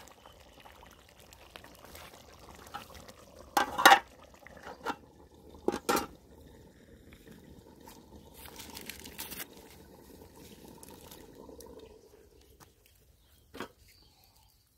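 Curry simmering in a metal pot over a wood fire, with a soft bubbling throughout. About four and six seconds in, ringing metal clanks come as a steel plate lid and a perforated ladle are set on the pot.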